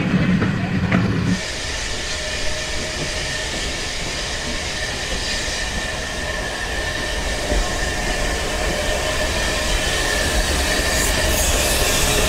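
Steam tank locomotive and its train rolling slowly into the station: a steady running rumble with a thin, faint squeal held on one pitch, growing louder as the engine draws alongside, with a few sharp clanks near the end. It opens with about a second of heavier ride rumble heard aboard a moving carriage, which cuts off suddenly.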